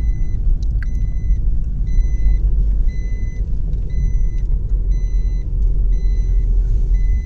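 Moving car heard from inside the cabin: a steady, heavy low rumble of road and engine noise. Over it, a faint electronic beep from the car repeats about once a second.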